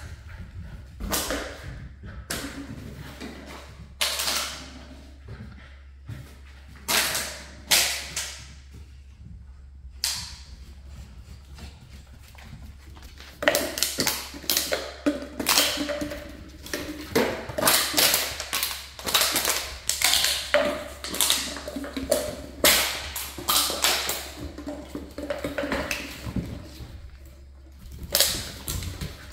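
Empty plastic water bottle crinkling and crackling as a pit bull puppy chews it and knocks it about on a hardwood floor. The crunches come in scattered bursts at first, then thick and fast from about halfway through.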